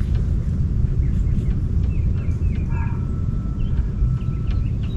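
Steady low rumble of wind on the microphone, with small birds chirping now and then in the background.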